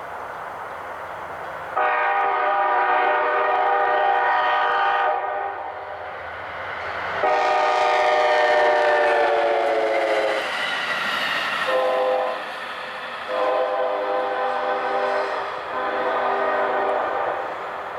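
Multi-chime locomotive air horn on a CT Rail Hartford Line train: two long blasts, a short one, then a long one, the pattern of a grade-crossing signal. The chord drops in pitch during the second blast as the train passes.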